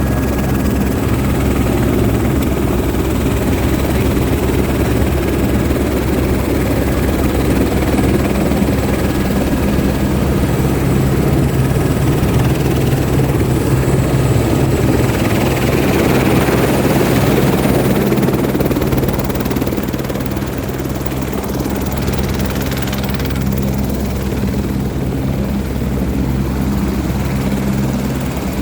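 Helicopter engine and rotor running steadily as a loud, continuous drone, easing off slightly about two-thirds of the way through.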